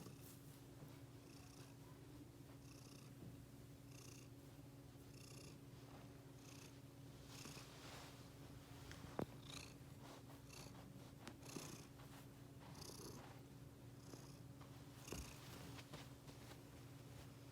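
Domestic cat purring faintly and steadily, its heavy breathing heard as soft puffs about once a second. A small click about nine seconds in.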